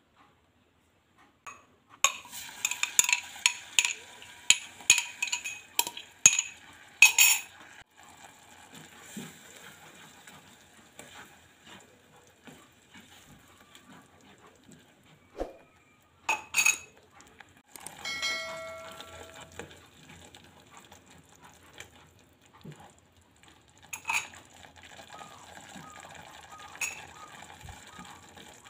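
A spatula clinking and scraping against a ceramic-coated saucepan while spice paste is stirred in hot oil. A quick run of taps and clinks comes in the first few seconds. After that there is a low sizzle of the paste frying, with a few single knocks of the spatula on the pan.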